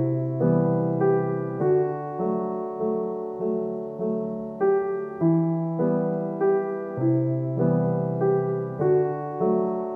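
Background piano music: a slow, even run of notes and chords, a new note struck about every half second.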